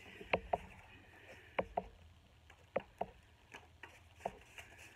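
Light knocks and clicks from vinyl record jackets and sleeves being handled and set down on a table, a string of short taps, some in quick pairs.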